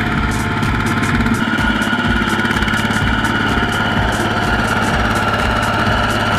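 Kubota RT140 single-cylinder diesel engine of a two-wheel walking tractor running steadily with a regular beat as it drags a loaded rice trailer through deep mud.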